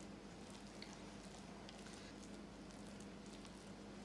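Faint soft squishing and scraping of a spatula pressing sticky burfi mixture flat into a metal pan, over a steady low hum.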